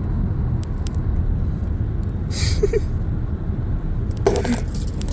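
Steady low road rumble inside a moving car's cabin, with a few light clicks and rattles, a short hiss about halfway through and a brief sharper sound near the end.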